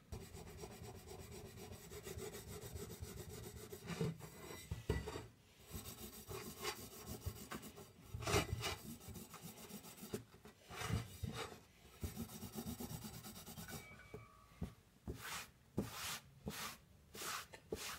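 Wire wool scrubbing paint off a chrome bicycle rim: repeated scratchy rubbing strokes, more spaced out and louder near the end.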